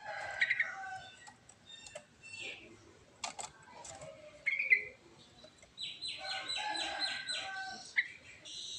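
Yellow-vented bulbul singing: scattered short chirps and whistles, then a fast run of repeated notes lasting about two seconds near the end.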